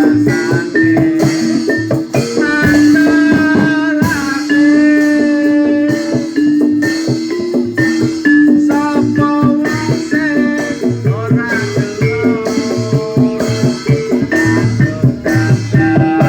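Music accompanying a barongan performance: fast, dense drumming under a melody of long held notes that step from one pitch to the next.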